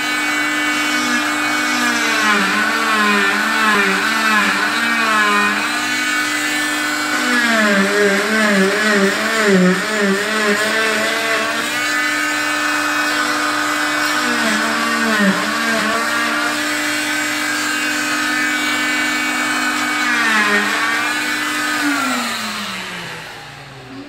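Electric oscillating cast saw running with a steady whine, its pitch dipping again and again as the blade is pressed into the fibreglass cast and cutting it open. Near the end it is switched off and winds down in a falling whine.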